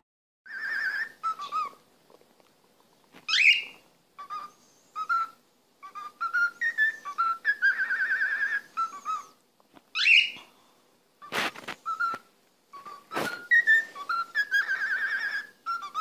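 Cockatiel whistling a tune in short phrases, with a trilling held note and two quick upward swoops. Two sharp clicks come in the second half.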